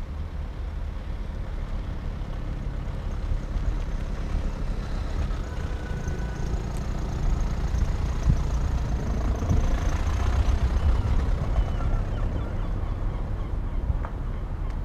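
A car driving slowly past close by: its engine and tyres grow louder about seven seconds in and fade a few seconds later, over a steady low rumble.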